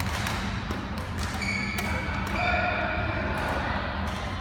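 Badminton hall ambience: a steady low hum with a few faint high squeaks and light taps from play on the court.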